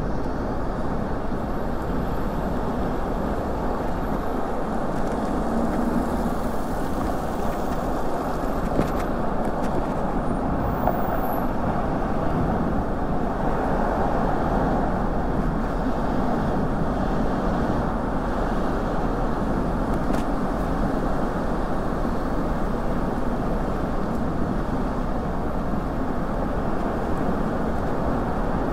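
Steady rush of city car traffic on a wet street, heard from a moving bicycle, with no distinct events standing out.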